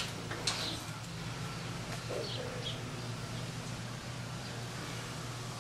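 Steady low hum with two light knocks near the start from an aluminium stepladder being climbed, and a few faint bird chirps about two seconds in.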